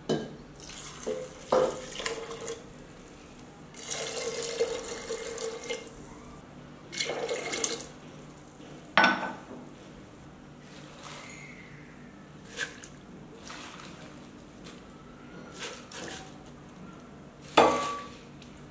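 Water poured from a bowl into a steel pressure cooker holding dry lentils, splashing in several pours of a second or two each. A few sharp clinks and knocks on the pot come between them, the loudest near the end.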